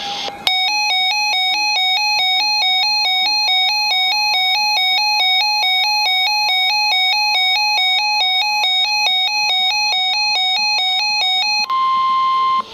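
Emergency alert tones ahead of a severe thunderstorm warning on NOAA Weather Radio. A buzzy two-pitch warble alternates several times a second for about eleven seconds. It then switches near the end to a steady single tone, the weather radio's 1050 Hz warning alarm tone, for about a second.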